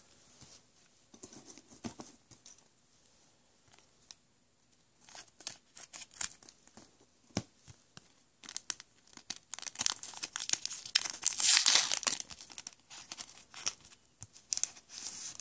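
Pokémon booster pack's plastic wrapper crinkling and tearing open, in scattered crackles that thicken into a long stretch of tearing and crinkling about two-thirds through and again near the end.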